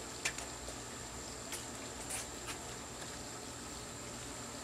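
Steady low hiss of the fire under a large aluminium boil pot, with a few faint clicks and taps as more seasoning is added and a hand works in the pot.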